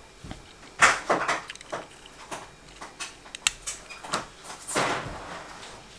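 Plastic tunnel mouse trap with a spring wire loop being handled and set: a series of sharp plastic clicks and knocks from its mechanism, the loudest about a second in.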